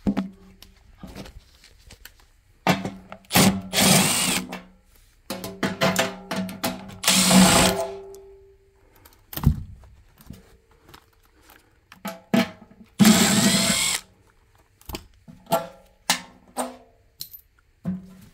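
Cordless drill fitted with a socket bit, run in three bursts of about one to three seconds, its motor whining up and winding down each time. Clicks and knocks of tools on the blower housing come between the bursts.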